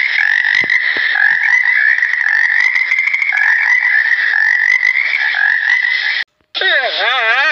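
Green water frogs croaking in a continuous, rippling chorus. After a brief break near the end, a different wavering call begins.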